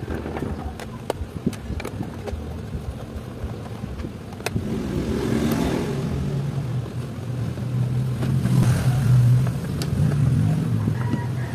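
Handling clicks, then a sharp click at about four and a half seconds as an electric massager's motor starts. The motor then runs with a steady low hum that grows louder toward the end, with no rattle now that its loose motor has been shimmed tight.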